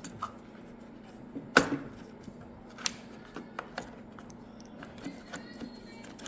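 Scattered clicks and knocks of small engine parts being handled and fitted back together, the loudest about a second and a half in, over a faint steady hum.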